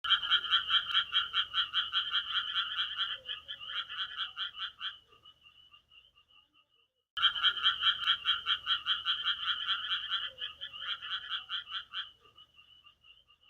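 Frogs croaking in a fast, steady train of repeated croaks. There are two bouts of about five seconds each, the second starting after a pause of about two seconds, and each thins out to softer calls at its end.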